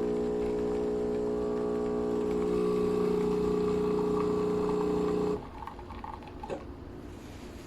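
Philips 3200 espresso machine's water pump buzzing steadily. It gets a little louder and changes tone about two seconds in, then cuts off abruptly a little after five seconds, leaving faint clicks and rattles.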